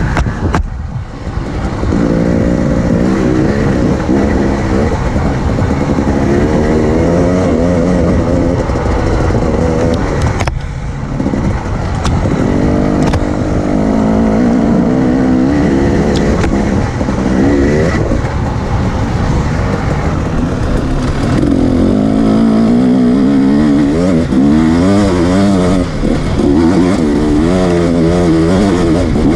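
Enduro motorcycle engine heard from on board while being ridden, its pitch rising and falling as the throttle is opened and closed. It drops back briefly about a second in and again about ten seconds in.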